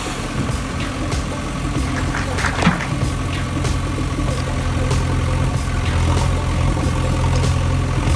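A heavy vehicle engine idling: a steady low hum with no change in speed. About two and a half seconds in there is a brief, sharper sound.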